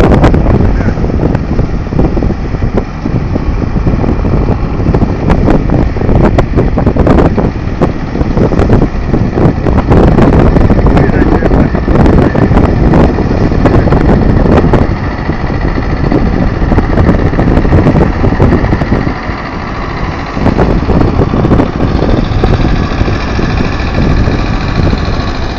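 Tractor engine running during a boat launch.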